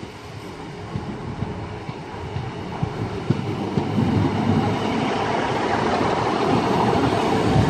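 Train running on the line, its rumble with scattered wheel-on-rail clicks growing steadily louder.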